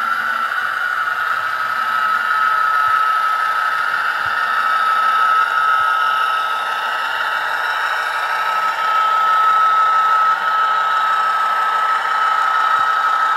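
Sound decoder in an HO scale P42 model locomotive playing its GE FDL16 diesel prime-mover sound through a small enclosed speaker, running steadily with a constant high whine over the engine noise.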